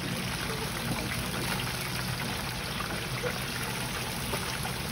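Hot frying oil sizzling with fine, steady crackles, and oil draining from freshly deep-fried breaded cutlets held in a perforated skimmer over the fryer.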